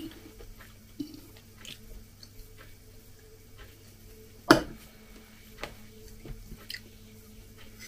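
Fork and knife clicking against a plate while cutting a pancake, a few light clicks with one sharper clink about halfway through.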